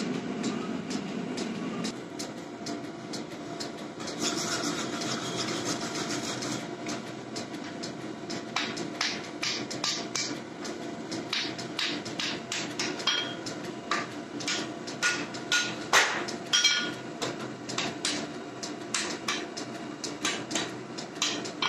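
Forge burner running steadily. From about eight seconds in, a hand hammer strikes a hot Damascus steel billet on an anvil: irregular ringing blows, roughly two a second, with one especially loud blow about three-quarters through. A brief hissing scrape comes about four seconds in.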